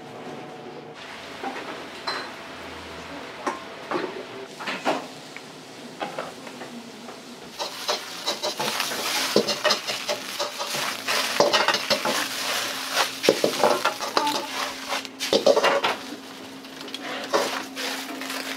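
Beaten egg and vegetables frying in hot oil in a steel wok over a gas burner, with a metal ladle clanking and scraping against the wok. Scattered clinks at first, then the sizzle turns loud and crackling about seven or eight seconds in, with rapid ladle strokes, and eases off near the end.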